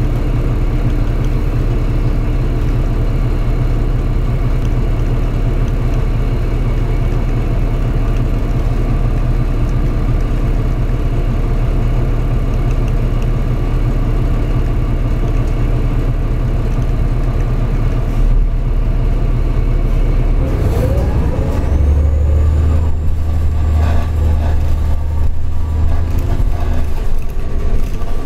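New Flyer D40-LF city bus's diesel engine heard from inside the passenger cabin, running at a steady low hum; about twenty seconds in its note rises and grows louder as the bus accelerates.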